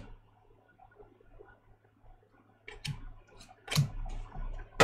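Trading cards being flipped through by hand: quiet at first, then about half a dozen sharp clicks and snaps of card edges against each other in the second half.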